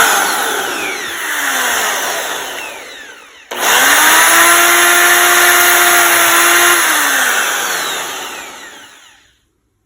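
Rotary tool with a cut-off wheel whining and grinding as it cuts a notch into a stripped steel screw head. Its pitch falls as the wheel bites. It cuts out about three and a half seconds in, starts again with a rising whine, runs at a steady high pitch for a few seconds, then winds down and stops near the end.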